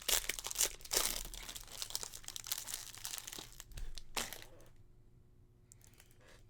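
Foil wrapper of a Topps baseball card pack crinkling and tearing as it is ripped open by hand. The crackling dies down about four seconds in.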